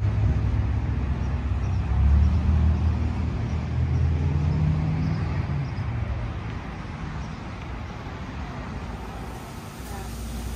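Road traffic: a low engine rumble from passing vehicles, loudest a couple of seconds in, then fading.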